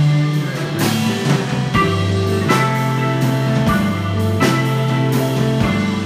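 Live rock band playing: electric guitar, bass, keyboard and drum kit, with held bass notes changing every second or so and sharp drum hits every couple of seconds.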